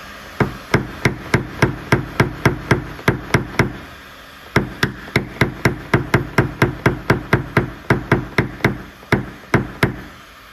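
Rapid light tapping from a paintless-dent-repair hammer and knockdown punch on the sheet metal of a Renault Captur rear door, about four taps a second, knocking down the high spots around the dent. A run of about a dozen taps, a pause of about a second, then about twenty more.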